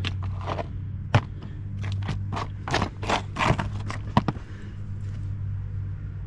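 Pieces of dug-up metal junk being handled and shifted about, a quick run of clicks, clinks and scrapes for about four seconds, over a steady low hum.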